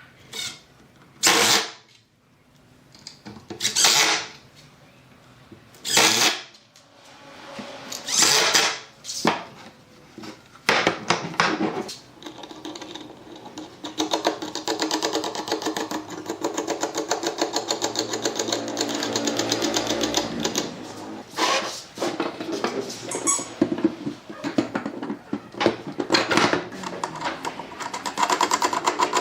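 A small motor-driven machine: several short runs of about a second each, then running continuously from about halfway through with a rapid rattling pulse.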